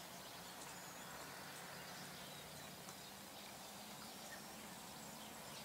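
Faint outdoor ambience: a steady hiss and low hum with scattered faint, short high chirps.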